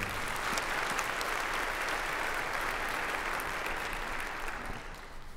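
Congregation applauding in a large sanctuary, a steady patter of clapping that dies away near the end.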